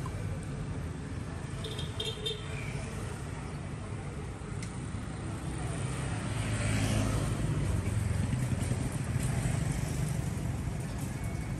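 Street traffic: a steady low engine rumble, with a vehicle passing louder about six to ten seconds in.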